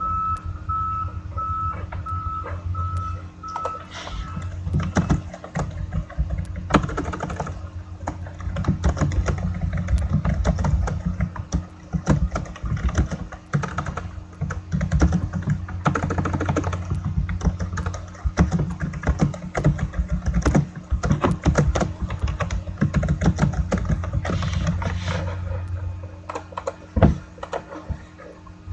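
Computer keyboard typing and clicking, irregular and dense, over a steady low electrical hum. A rapid run of short, same-pitched beeps sounds through the first four seconds.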